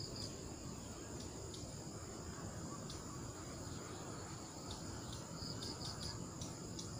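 Insects chirring steadily at a high pitch, with a short run of quick chirps about five and a half seconds in, over a low background rumble.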